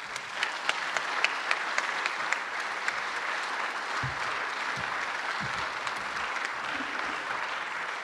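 Audience applauding, starting suddenly, with a few sharp single claps standing out in the first couple of seconds before it settles into steady dense clapping. A few low thuds come about halfway through.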